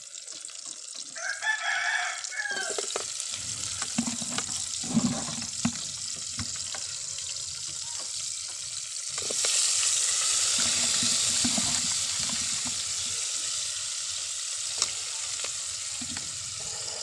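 A rooster crows once about a second in. Then pieces of boiled chicken go into a pot of hot oil with garlic and onion and sizzle steadily, with a few clinks of the ladle; the sizzle grows louder about nine seconds in.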